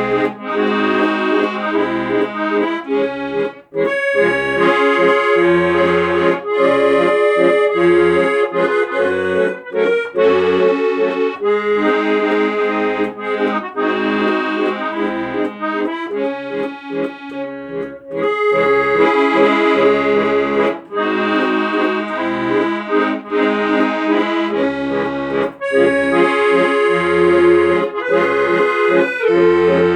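Accordion music: a sustained reedy melody over low bass notes that come in about once a second.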